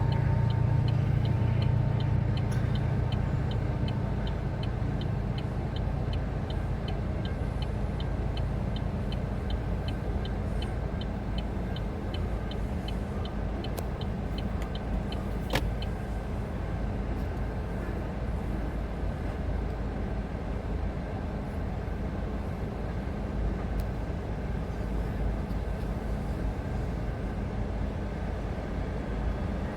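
Train passing: a heavy low engine hum fades over the first few seconds, leaving a steady low rumble. Over this, a rapid high ticking, about three a second, runs until about halfway and stops with a sharp click.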